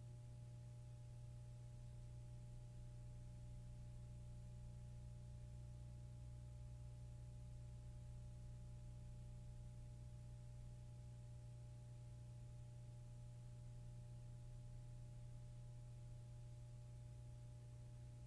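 Near silence: only a steady low hum with a couple of faint, higher steady tones.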